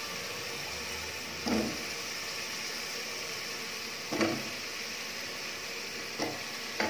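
Potato pieces frying in tomato masala in an aluminium pressure cooker pot, with a steady sizzle. A wooden spatula stirs them, knocking or scraping against the pot a few times.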